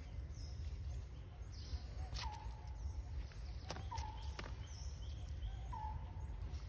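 A short animal call repeated about every two seconds, each a sharp click followed by a brief steady note, over a low steady rumble.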